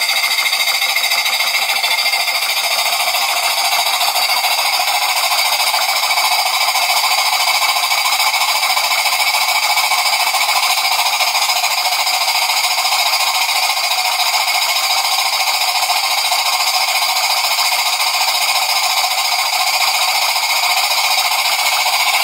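Jensen 20G model steam engine running steadily with its home-made geared speed-reducing transmission, driving a model beam water pump by belt: an even whirring hiss with no separate beats.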